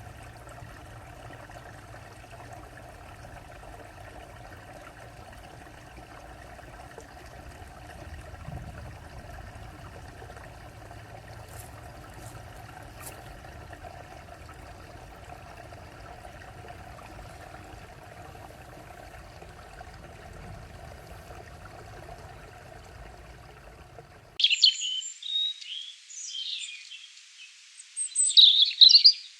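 Nature soundscape: a steady, even background wash for most of it. About 24 s in it cuts abruptly to songbirds chirping and trilling, loud and high-pitched.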